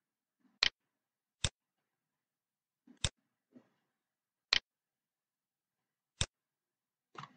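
Computer mouse button clicks: about five sharp single clicks, spaced a second or more apart, with a few fainter ones between.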